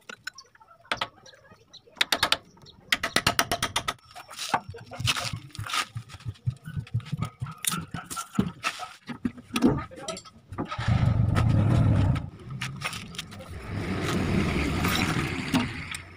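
Metal clicks and clinks of a wrench undoing the bolts around a Suzuki Carry T120SS oil pan, with a fast run of even clicks about three seconds in. Later come two longer stretches of a louder low rushing noise, the first of them the loudest sound.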